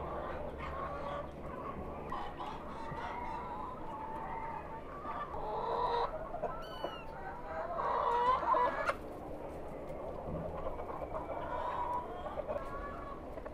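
Chickens clucking, with a louder, longer call about eight seconds in. A quick run of high bird chirps comes shortly before it.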